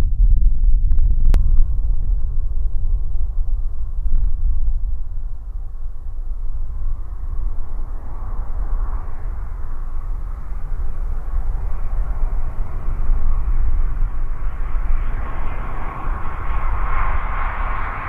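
Airbus A320 airliner on final approach, its jet engine noise growing steadily louder as it nears, with a steady whine that strengthens over the last few seconds. A constant low rumble lies underneath, and there is a single click about a second in.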